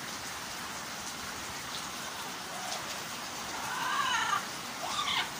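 An Amazon parrot giving short calls that rise and fall: a faint one about halfway through, a louder, longer one just before four seconds in, and a shorter one near the end. A steady hiss runs underneath.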